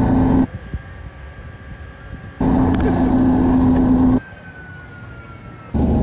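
Zip line trolley running down the cable, with rushing wind: a steady hum and rush that drops away abruptly about half a second in, comes back about two seconds later, drops away again, and returns near the end.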